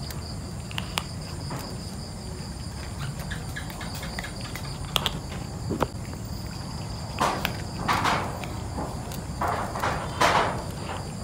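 Cat crunching dry kibble from a metal tray in short irregular crunches, with louder bursts about seven seconds in and again near the end. Under it runs a steady high insect trill.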